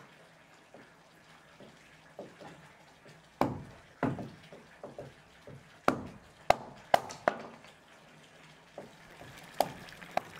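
Hatchet splitting kindling by hand: about eight sharp, irregular wood knocks, several coming close together around the middle.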